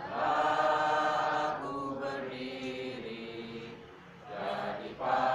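A group of people singing together in unison, holding long notes, with a brief pause about four seconds in.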